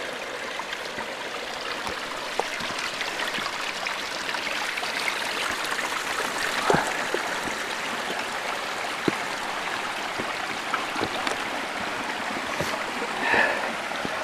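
Mountain stream flowing steadily, with a few short knocks scattered through.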